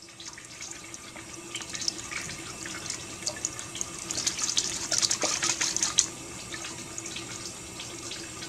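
Kitchen faucet running onto a small aluminum soda can and into a sink, water splashing as the can is rinsed out. The splashing is busiest in the middle and settles to a steadier stream about six seconds in.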